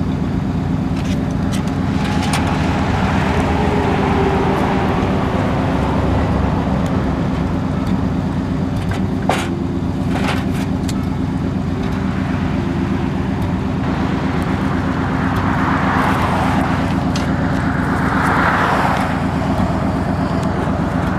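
A vehicle engine idling steadily, with a couple of sharp clicks about nine and ten seconds in and passing road traffic swelling near the end.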